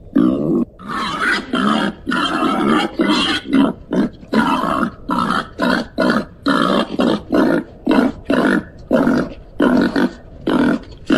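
Babirusa grunting in a quick run of short grunts, about two a second.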